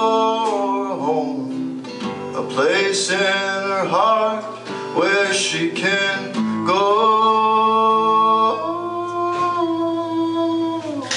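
A man singing with a strummed acoustic guitar, in a live performance of a folk song; his voice draws out two long held notes in the second half and stops near the end.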